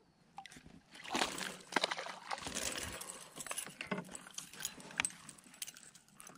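Irregular clicking, knocking and rattling of fishing gear being handled on a kayak, with several sharp clicks, the strongest about a second in and near the five-second mark.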